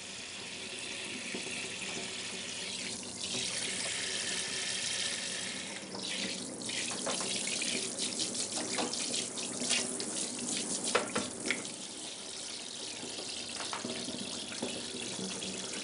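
Tap water running steadily into a darkroom sink, with irregular splashes and drips about six to twelve seconds in, while a wet photographic print is rinsed and worked during bleaching and toning.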